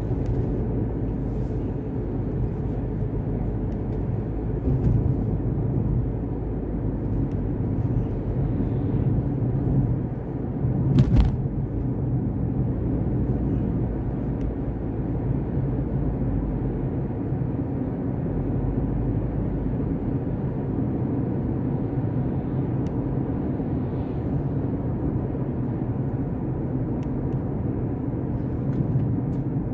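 Steady in-cabin noise of a car being driven: the low hum of the engine with tyre and road rumble, heard from inside the car. A single short knock sounds about eleven seconds in.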